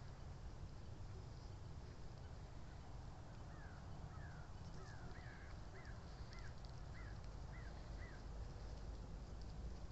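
A bird calling in a run of about nine short, thin, arched notes, just under two a second, starting about three and a half seconds in and stopping about eight seconds in, over a steady low rumble.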